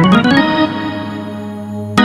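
Roland XPS-10 keyboard playing a demo tone: a quick falling run of notes ends just after the start, then one held note rings on, fading slightly, until a new note is struck at the very end.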